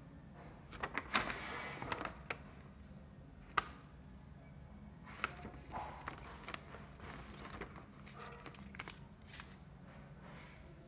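Sheet of paper rustling and crinkling as it is handled and folded, with a cluster of sharp clicks about a second in and a single sharp click about three and a half seconds in.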